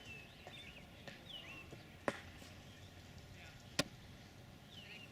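Small birds giving short chirping calls now and then, with two sharp knocks, one about two seconds in and a louder one near four seconds.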